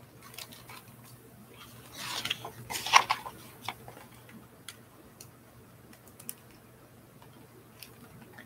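A page of a large picture book being turned: a rustle of paper with a few clicks about two to three seconds in, then a few faint scattered ticks of handling.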